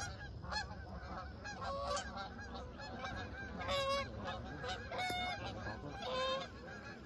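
A large flock of geese honking in flight: many overlapping calls, with several louder single honks standing out.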